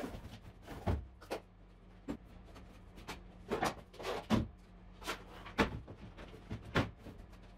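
A dozen or so irregular knocks and clatters of plastic tool cases and tools being set down on and slid onto wooden shelves.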